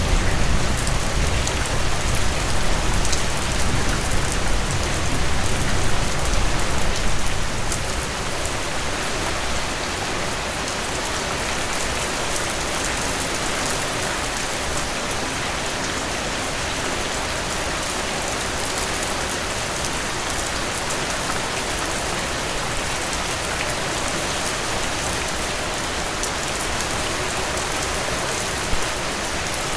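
Heavy rain falling in a dense, steady hiss. A low rumble of thunder rolls through the first several seconds and fades away, and near the end there is one brief louder drip or splash.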